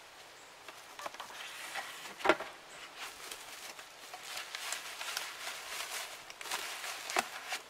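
Plastic bubble wrap rustling and crinkling as a wrapped pan is handled and set into a cardboard box, with one sharp knock about two seconds in.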